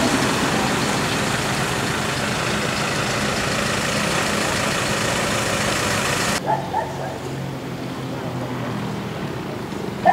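Muddy floodwater rushing through a swollen roadside ditch: a loud, steady rushing noise that cuts off abruptly about six seconds in. It gives way to a quieter, low engine hum of vehicles idling.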